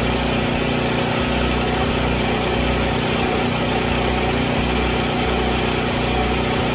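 Self-shielded flux-core wire welding from a Lincoln Weld-Pak 140: the arc crackles and hisses steadily over a low, steady hum.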